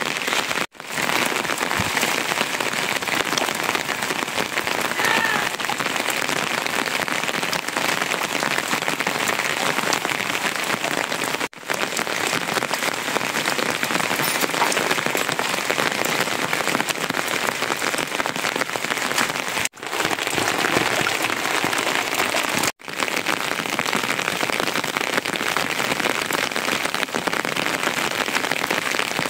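Steady rain falling, a dense patter of raindrops. It cuts out briefly four times.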